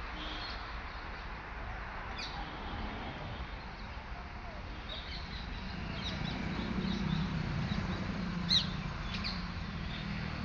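Outdoor ambience with birds chirping now and then, short high calls scattered through, the sharpest one near the end. Under it a low steady hum rises a little in the second half.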